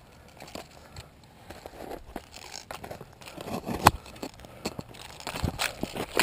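Rustling and crunching of footsteps and gear on dry ground cover, with scattered small clicks and one sharp knock about four seconds in.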